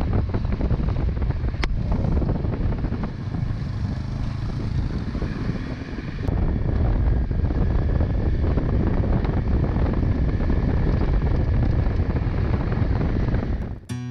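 Motorcycle riding sound: engine and road noise under heavy wind buffeting on the microphone, a loud, steady rush that swells a little about six seconds in.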